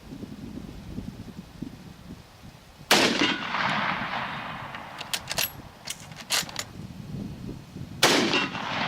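Two rifle shots from a Gewehr 98 Mauser in 8x57mm, about five seconds apart, each a sharp blast that rings off for a second or more. Between them come a few quick sharp clicks of the bolt being worked to chamber the next round.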